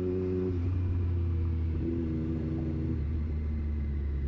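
Triumph Street Triple 765 RS inline three-cylinder engine with a Racefit Growler full exhaust system running while riding, under a heavy low rumble of wind and road. Its steady engine note breaks off about half a second in, comes back briefly, then fades under the rumble.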